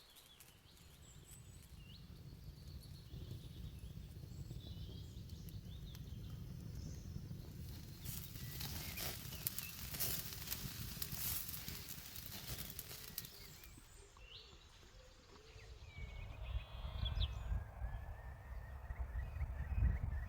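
Woodland ambience: scattered bird calls over a low rumble, with a run of sharp crackles and snaps in the middle. Clearer birdsong comes in near the end.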